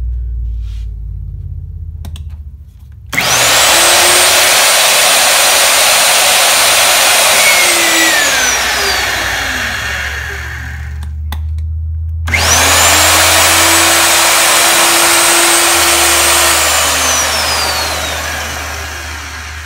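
Tyhoon magnetic drill's electric motor power-tapping threads in steel, run twice. Each time it starts abruptly, spins up fast to a steady high whine, holds for about four seconds, then winds down. A low hum lies underneath throughout.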